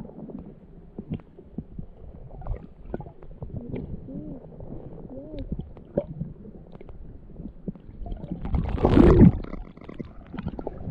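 Muffled underwater sound from a camera held in shallow sea water: a low gurgling rumble with scattered clicks and bubbly pops. About nine seconds in comes a louder gush of water as the camera moves up toward the surface.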